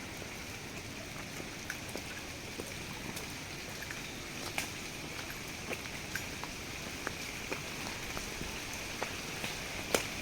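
Monsoon rain falling steadily, with scattered single drops ticking sharply close by, one louder tick near the end.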